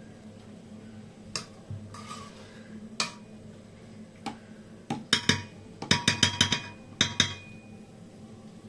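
Metal spoon clinking and scraping against a rice cooker's inner pot while fluffing cooked pulao: a few single taps, then a quick run of ringing clinks in the second half.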